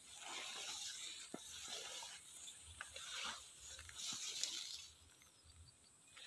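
Faint irregular rustling and brushing in a vegetable bed, with a few light clicks and soft low thuds, as of someone walking among the plants.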